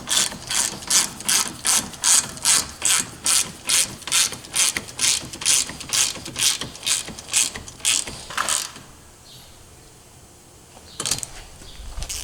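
Hand ratchet wrench tightening bumper bolts, its pawl clicking in quick, even back-and-forth strokes, about three a second. It stops about eight and a half seconds in and starts again near the end.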